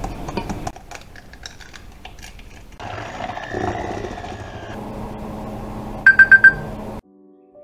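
Quick succession of kitchen sounds: light taps and rattles of a mesh sieve sifting cocoa powder, then an electric hand mixer running steadily in a stainless steel bowl for about four seconds. Four quick, loud, high beeps sound near the end, and soft music begins just after.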